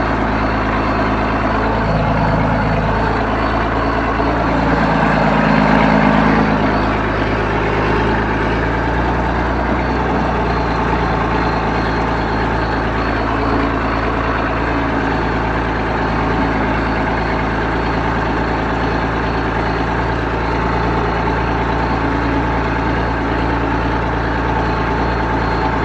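John Deere 4630 tractor's six-cylinder diesel engine running steadily while driving, heard from inside the cab, with the engine note swelling briefly about five seconds in.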